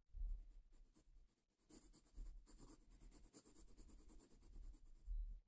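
Faint scratching of a coloured pencil shading on sketchbook paper in quick, short strokes, busiest in the middle, with a soft low bump at the start and another near the end.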